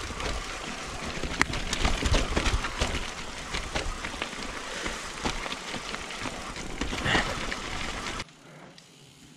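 Mountain bike rattling down a steep, rooty dirt trail: a constant rumble of tyres and frame with many sharp clicks and knocks from roots and the bike's parts. The noise cuts off abruptly near the end.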